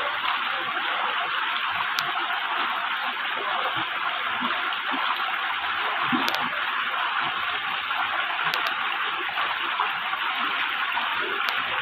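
Shallow mountain stream rushing and burbling over rocks, a steady even wash of water. A few faint clicks are heard over it.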